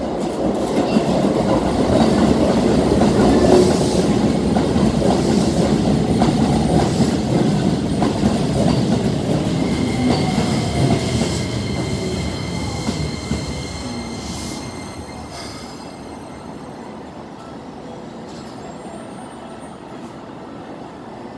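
Keikyu electric commuter train arriving at a platform: the rumble of its wheels on the track swells over the first few seconds, then fades as it slows. A high steady squeal comes in about ten seconds in as it brakes. By about sixteen seconds in the train has nearly stopped, and only a quieter steady noise remains.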